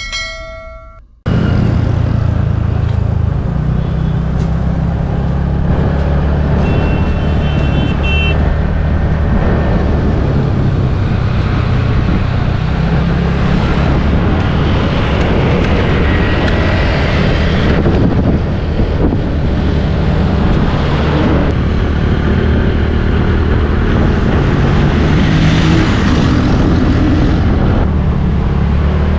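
A short ringing chime dies away about a second in. Then the steady low rumble of travel along a road: wind buffeting the microphone, mixed with engine and road noise from the moving vehicle that carries the camera.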